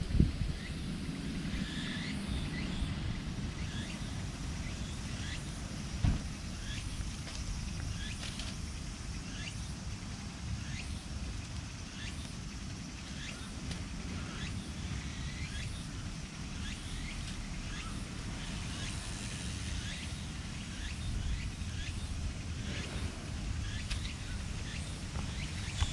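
Outdoor background: a steady low rumble of distant traffic with many short, high chirps of small birds repeating throughout, and a single dull thump about six seconds in.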